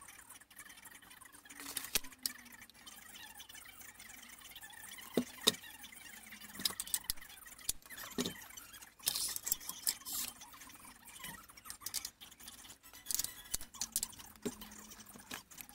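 Handling noise from a Parkside PDT 40 D3 pneumatic nailer being turned over and put down on a tabletop: scattered clicks and light taps, with stretches of rustling.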